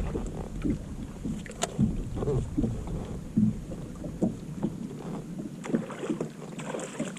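Wind buffeting the microphone aboard a small fishing boat, with scattered small knocks and one sharp click about one and a half seconds in. The low wind rumble eases off in the second half.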